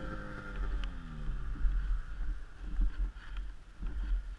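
Snowmobile engine with its revs falling steadily as the machine slows, the note dying away about a second and a half in, leaving an uneven low rumble.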